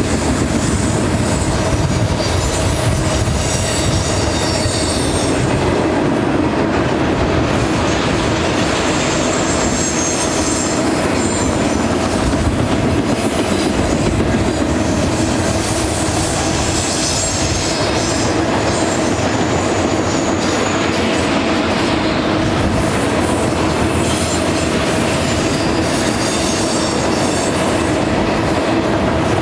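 Double-stack container well cars of a freight train rolling past: a steady rumble of steel wheels on rail, with high-pitched wheel squeal coming and going every few seconds.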